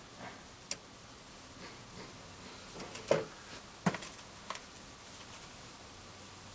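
A few scattered light knocks and clicks from handling at a drill press, with a quiet room between them; the loudest knock comes about three seconds in and a second follows under a second later.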